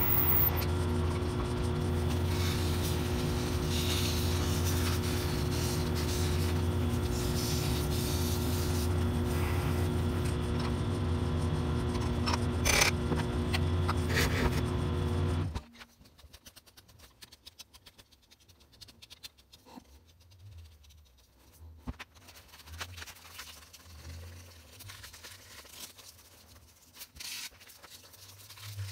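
Wood lathe running with a steady hum while a red ash wand is parted off at the headstock end. The sound cuts off abruptly about halfway through, leaving only faint, scattered knocks and handling sounds.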